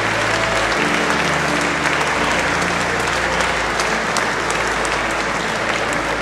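Audience applauding steadily, with music playing underneath in sustained low notes that change about a second in and again about two seconds in.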